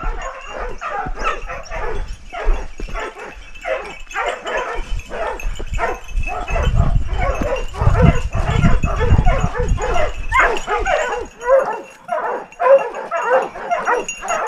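A pack of hunting dogs barking and yelping without a break, many voices overlapping, as they hold a wild boar at bay in the brush. A low rumble runs underneath from about six seconds in to about eleven.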